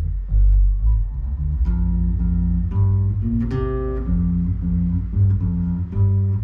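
Electric bass guitar played through an effects pedal board: a run of plucked notes, each held about half a second to a second, with one brighter, higher note midway.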